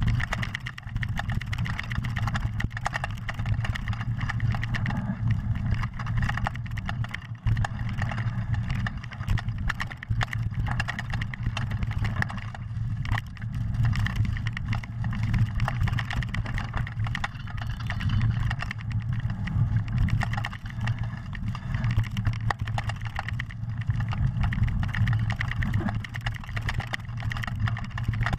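Mountain bike descending a fast dirt trail at speed: a continuous low rumble of wind buffeting the camera microphone and tyres on dirt, broken by frequent short rattles and knocks as the bike runs over stones and roots.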